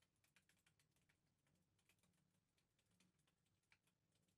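Near silence, with faint scattered clicks and ticks over a low hum.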